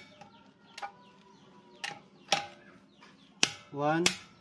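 Click-type torque wrench set to 105 N·m clicking over on wheel lug nuts: a faint click about a second in, then two pairs of sharp clicks, each pair about half a second apart. The clicks are equally loud, the sign that each nut has reached the set torque. A short vocal sound comes near the end.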